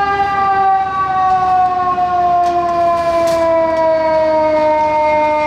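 Siren of a Seattle Fire Department tiller ladder truck, one long tone sliding slowly down in pitch.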